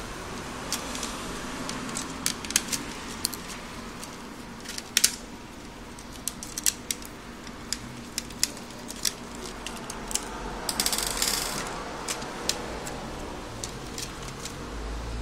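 Irregular small metallic clicks and ticks of a screwdriver working the corner screws of a PS3 Slim Blu-ray drive's laser rack, with a short scraping rustle about eleven seconds in as the rack is worked loose and lifted out.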